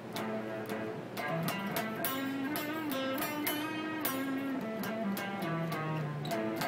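Stratocaster-style electric guitar improvising a blues, a run of picked single notes one after another, one note bent slightly about two seconds in.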